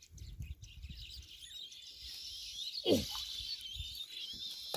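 Birds chirping in the background over a low rumbling noise, with one short falling sound about three seconds in.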